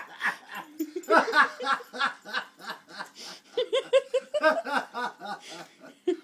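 A person laughing in a long run of short, rhythmic bursts.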